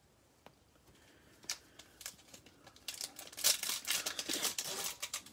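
Foil trading-card pack wrapper crinkling in gloved hands as it is torn open, faint at first and much louder from about three seconds in.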